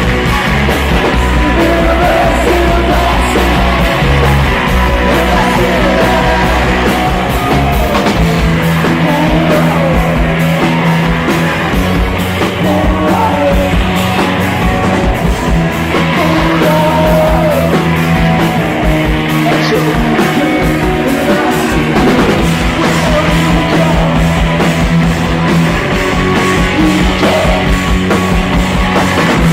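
Live rock band playing loud and fast, with electric guitars, bass and pounding drums, and singing over them.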